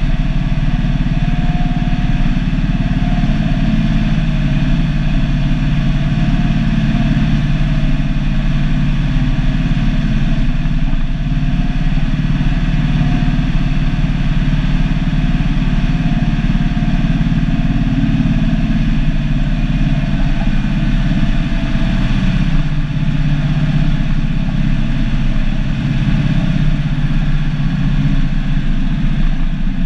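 Turbocharged Cummins NH-180 inline-six diesel of an International F-210D dump truck, running steadily under way, heard from inside the cab.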